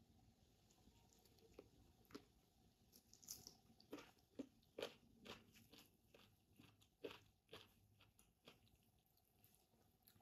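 Near silence with faint, scattered soft clicks and squelches of eating by hand: fingers working through a plate of kottu roti mixed with ice cream, and chewing. The small sounds come irregularly, thickest in the middle and thinning out near the end.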